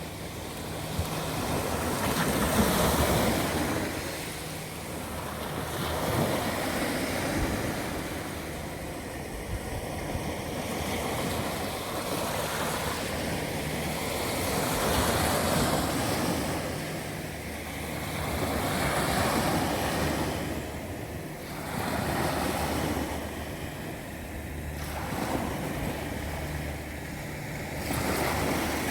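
Ocean waves breaking and washing up on the shore, the surf swelling and fading every few seconds; the speaker puts the rough sea down to a storm offshore.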